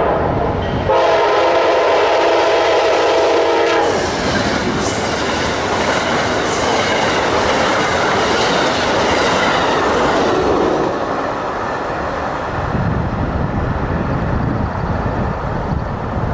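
Amtrak passenger train led by a GE P42DC diesel locomotive blowing a long horn blast of about three seconds, then rushing past at speed with wheels clacking over the rail joints. The passing noise eases off after about eleven seconds.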